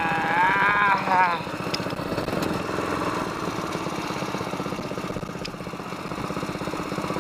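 SPS longtail mud motor engine running steadily with an even, rapid pulse. A person's voice calls out over it in the first second or so.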